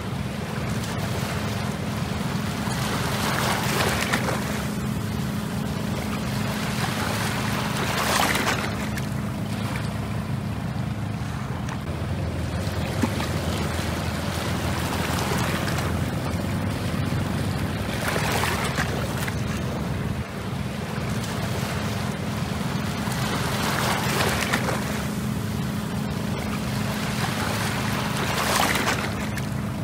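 Small sea waves washing onto the shore, surging and falling back several times, over a steady low rumble.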